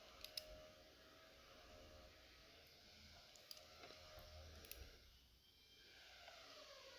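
Near silence with a few faint, sharp clicks: two close together near the start and several more scattered through the middle.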